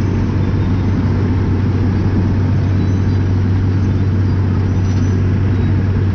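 Asphalt milling machine and a loaded dump truck running together: a loud, steady heavy-diesel drone with a low hum, as the machine cuts the pavement and conveys the millings into the truck bed.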